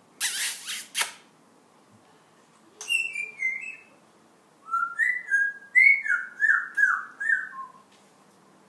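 African grey parrot whistling: a short phrase of falling notes about three seconds in, then a run of about eight sliding whistled notes. A brief harsh, hissing burst comes near the start.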